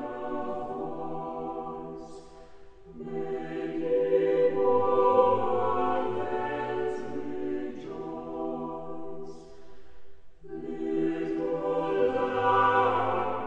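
A choir singing slow, sustained phrases of sacred-style choral music, with brief breaks between phrases about two and a half seconds in and again about ten seconds in.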